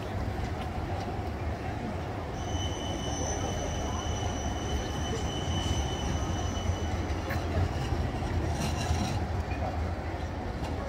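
Siemens Combino low-floor tram rolling along street track with a steady low rumble. Its wheels squeal on the curve in a thin, steady high tone from about two seconds in until about seven and a half seconds, followed by a short run of clicks from the wheels over the rails.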